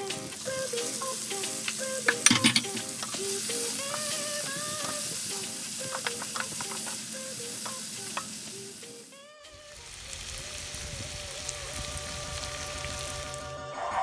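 Chicken sizzling as it fries in a pan while it is stirred, with a few utensil clicks about two seconds in. The sizzle drops away briefly about nine and a half seconds in, then returns.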